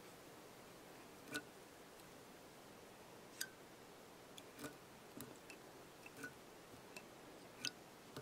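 Near silence broken by about ten faint, sharp clicks at uneven intervals, from hands winding holographic tinsel along a hook held in a fly-tying vise.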